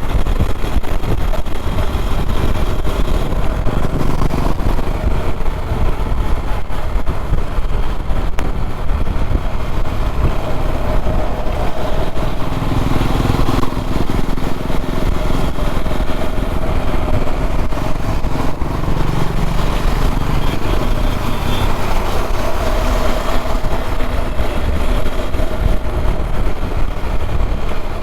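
KTM Duke 390's single-cylinder engine running under way at highway speed, its note changing a few times as the revs vary, over steady low rumbling road and wind noise.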